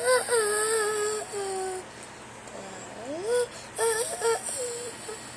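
A girl's high voice singing without accompaniment in a small room: one long held note, then a rising swoop and a few short, quick notes.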